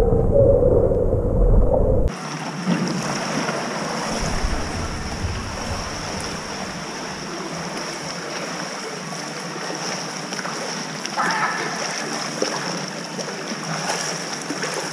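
Water lapping and sloshing right at the microphone at the waterline for about two seconds, then, after a sudden change, the steady splashing of a swimmer doing front crawl heard from the poolside under an even hiss.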